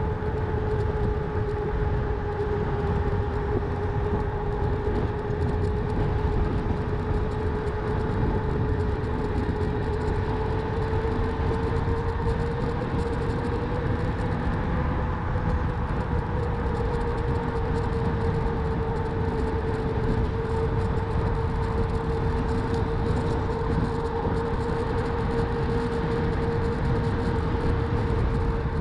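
Electric bike's motor whining steadily as it rides, its pitch rising a little about halfway through and settling again, over a constant low rumble of wind and tyres on the microphone.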